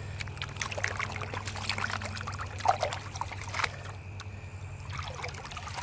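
Water sloshing and splashing in irregular bursts as a plastic gold pan is dipped and rocked under the surface of a muddy puddle, washing the light sediment off the top. A steady low hum runs underneath.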